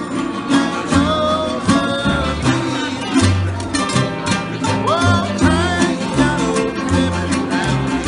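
Live acoustic trio playing: two acoustic guitars strummed and picked over a plucked upright double bass, with a man singing the melody.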